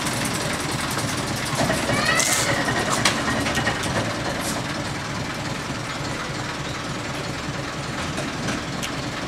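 Small narrow-gauge diesel locomotive, done up to look like a steam engine, with its engine running steadily as it moves slowly along the track. There is a brief high squeak about two seconds in.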